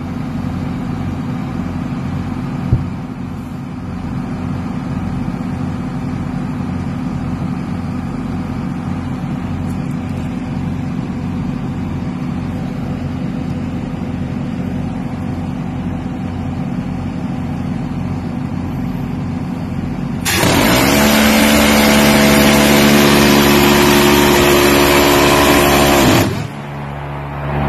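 C-RAM's 20 mm six-barrel Gatling gun firing one continuous burst of about six seconds, a very rapid buzzing stream of shots that starts about twenty seconds in and cuts off suddenly. Before and after it, a steady machinery hum with a slow pulse.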